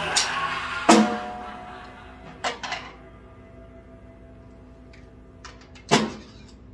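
The play-along music stops and its last sound dies away, then a few isolated hits on a drum kit, each left ringing: a loud one about a second in, two lighter ones, a few faint clicks, and another loud hit near the end.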